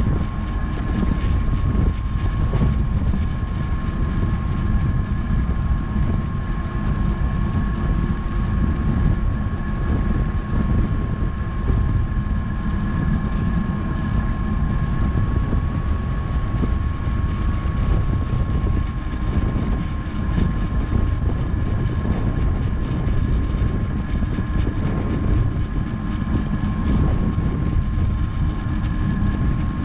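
Wind buffeting a GoPro 7's microphone on a bicycle coasting fast downhill: a steady low rumble with a thin, steady high whine running through it.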